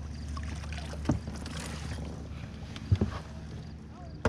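Kayak on open water: a steady low rumble, with two short knocks, about a second in and again near three seconds.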